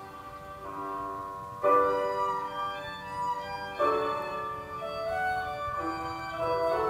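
Instrumental background music: held notes and chords that change every second or two, with a sharper new chord about a second and a half in and again near four seconds.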